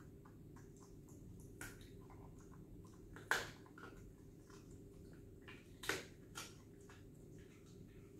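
A dog chewing a bone: a few short, sharp crunches of teeth on bone, the loudest about three and six seconds in, over faint room noise.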